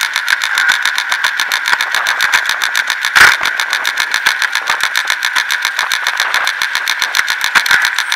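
Alpine coaster sled running on its metal rail track, its wheels giving a rapid, even rattling clatter, with one louder knock about three seconds in.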